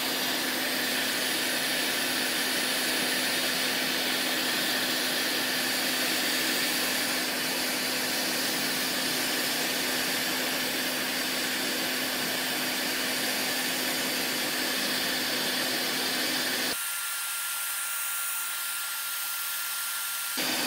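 Quick 861DW hot air rework station blowing steadily, set to 480 °C and air speed 60, to desolder an SN75DP159 HDMI retimer chip from a circuit board: a steady rushing hiss with a low hum. About 17 s in the sound abruptly thins and drops a little, with a faint thin high tone, for a few seconds, then returns just as abruptly.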